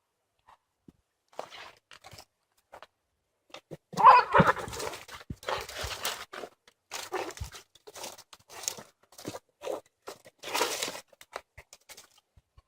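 Street cats fighting: quiet scuffling at first, then a sudden loud clash about four seconds in, followed by a run of short, harsh hissing and scuffling bursts about once a second.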